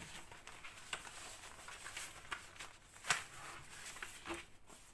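A plastic zip-seal bag and paper sheets rustling and crinkling as a cross-stitch kit is drawn out and laid on a table, with a sharper crinkle about three seconds in.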